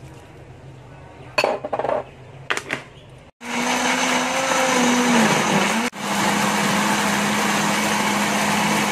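A couple of sharp knocks, then an electric blender starts about a third of the way in and runs loud, puréeing onions, garlic, soaked dried chillies and prawn heads with a little water into a chilli paste. Its motor tone dips briefly, cuts out for an instant, then runs steadily.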